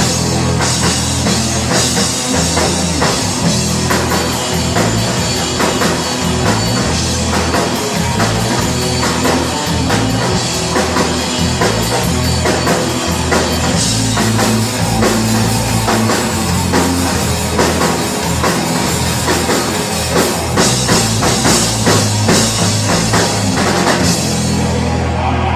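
Live rock band playing an instrumental passage: a drum kit hitting steadily over distorted electric guitars and bass.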